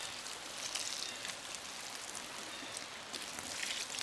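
Water poured from a pot onto a burnt-out campfire, splashing and pattering on the charred wood and ash as the fire is doused.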